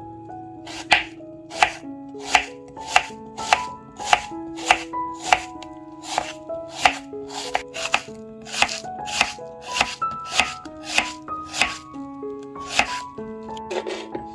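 Kitchen knife slicing an onion on a wooden cutting board, a sharp knock each time the blade meets the board, a steady rhythm of a little under two cuts a second. Soft piano music plays underneath.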